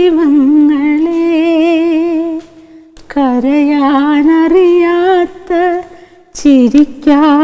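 A woman singing a Malayalam song unaccompanied, holding long notes with a wavering vibrato. She breaks off briefly about two and a half seconds in and again near six seconds.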